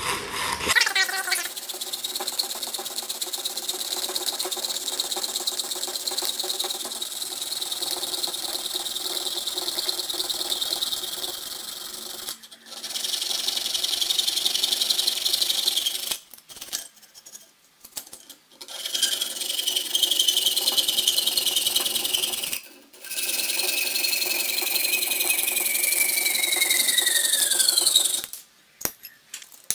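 Piercing saw cutting thin sheet metal held in a vise: a fast, steady, high rasping of the fine blade's strokes, broken by a few short pauses. Near the end a high ringing note slides down in pitch before the sawing stops.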